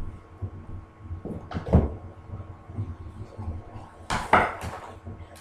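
A few scattered knocks and clatters of hand tools against wooden floorboards, coming irregularly in two small clusters rather than as a steady hammering rhythm.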